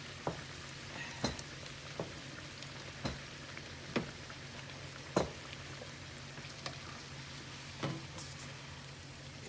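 Guyanese bakes (fried dough) frying in hot oil in a pan: a steady sizzle, with a sharp click or pop about once a second.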